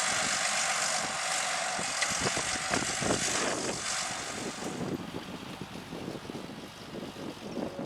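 Fendt 820 Vario tractor's six-cylinder diesel engine running under load while ploughing, a steady drone that grows fainter from about five seconds in.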